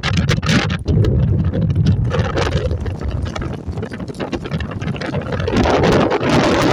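Wind buffeting the microphone: a loud, continuous rumbling rush with no clear pitch.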